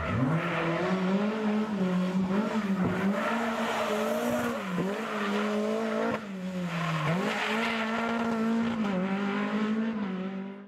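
Škoda rally car engine revving hard, its pitch falling and climbing again several times as the driver lifts and shifts gear through the corners. The sound cuts off suddenly near the end.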